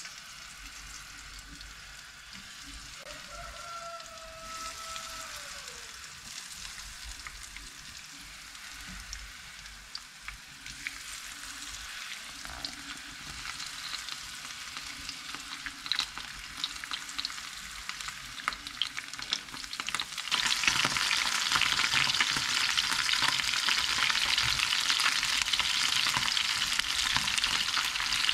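Small bleak (oblete) in a coating, frying in hot oil in a pan: a sizzle with crackling spatters. It builds as more fish go into the pan and becomes much louder and denser about two-thirds of the way through, once the pan is full.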